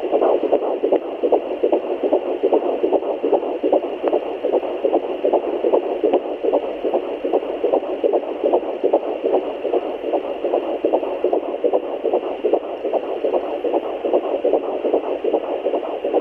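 Fetal heartbeat heard through a handheld fetal Doppler: a rapid, even, whooshing "galloping horse" beat that holds steady throughout.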